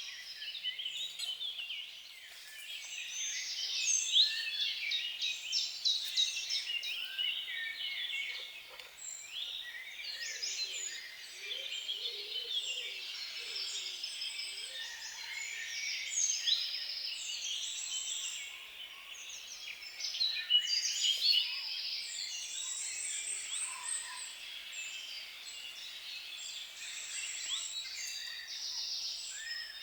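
Many songbirds singing at once: a dense chorus of high chirps, trills and whistles overlapping without a break.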